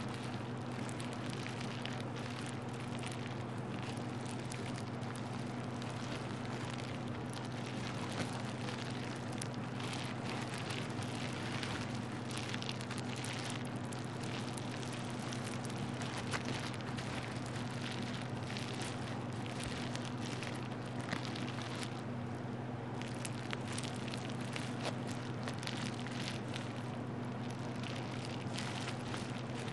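Plastic bubble wrap crinkled and squeezed by hand close to the microphone: a dense, continuous crackling with a few louder clicks, over a steady low hum.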